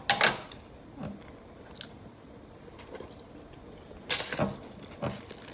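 A person biting into and chewing a steamed dim sum beef ball, close to the microphone, with a few sharp mouth clicks and smacks just after the start, about a second in and again about four seconds in.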